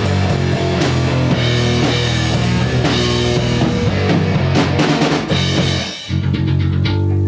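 Rock band playing live: drum kit with guitar. The loudness briefly drops about six seconds in before the playing picks up again.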